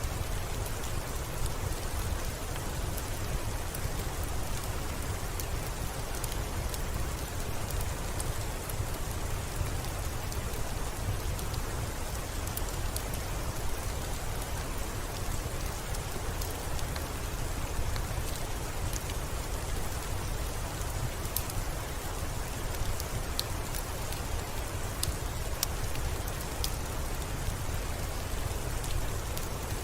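Steady rain: an even hiss over a heavy low rumble, dotted with scattered small sharp ticks and crackles.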